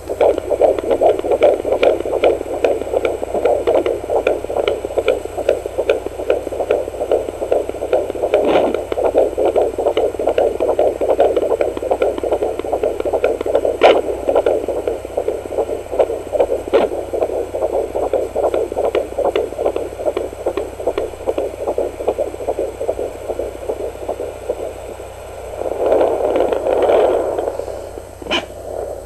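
Handheld fetal Doppler's speaker playing a fetal heartbeat at 14 weeks 5 days: a fast, steady, whooshing pulse, with a few sharp scraping clicks from the probe. Near the end the pulse drops away briefly and comes back as a broader whoosh.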